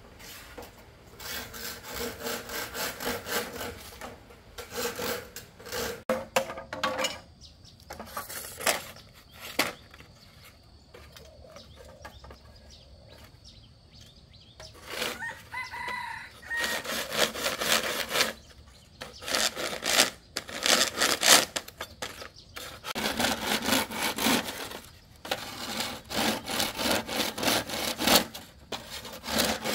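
Rhythmic sawing strokes in several runs, with a pause of a few seconds in the middle. A rooster crows once about halfway through.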